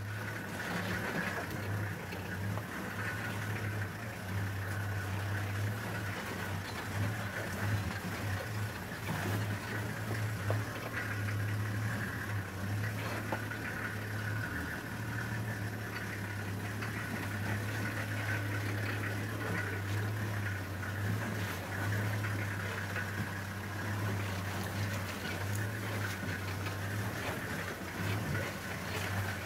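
Open safari game-drive vehicle's engine running steadily at low speed as it crawls down a rough, rocky dirt track, with a few light clicks and rattles.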